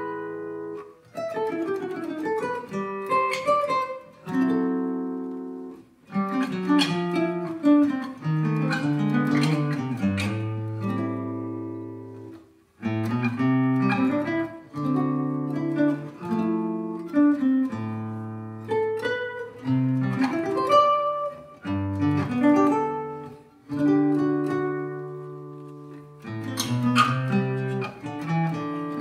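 Acoustic guitar music, plucked and strummed notes in phrases broken by a few short pauses.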